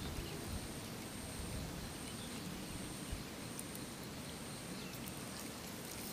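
Quiet outdoor ambience: a steady low hiss with a thin, high note repeating a little more than once a second, and a few faint clicks.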